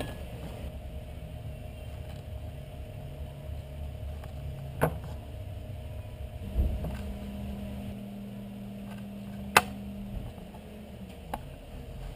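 A steady low mechanical hum runs throughout, and a second, higher hum joins after a dull thump about halfway through. Three sharp clicks stand out over it, the loudest about three-quarters of the way in.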